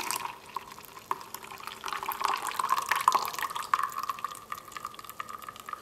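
Shaken cocktail poured from a cocktail shaker into a glass mug: a stream of liquid splashing into the glass, thinning to a trickle near the end.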